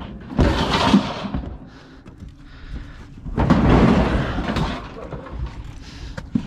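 Refrigerator door being wrenched and knocked loose from its hinges: two stretches of banging and clatter, about half a second in and again from about three seconds in.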